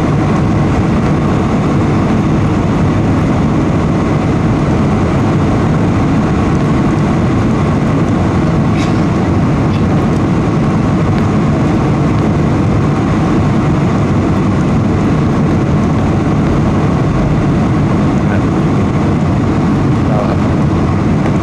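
Jet airliner cabin noise on final approach: the engines and rushing air make a steady, loud low rush, with a faint steady whine above it.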